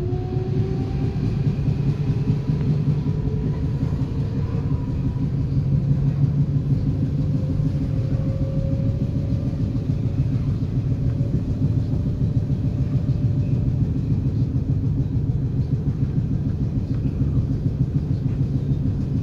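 Interior of a DSB Litra SA S-train running, its Siemens GTO-VVVF inverter and traction motors whining. The whine rises in pitch over the first few seconds as the train accelerates, then climbs gently again in the middle, over a steady rumble of wheels on track.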